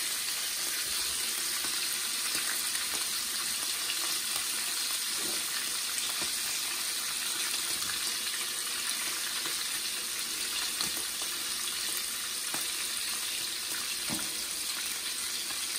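Blacktail deer steaks sizzling in bacon grease in a frying pan on medium-high heat: a steady hiss with scattered faint pops.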